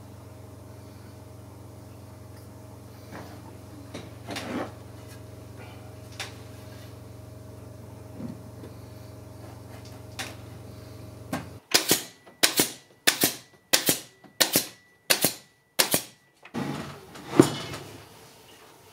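Steady workshop hum with a few faint handling clicks. The hum cuts off about two thirds of the way in, and about eight sharp, loud cracks follow, roughly two a second, from upholstery work on a wooden armchair. Fabric rustling and a knock come near the end.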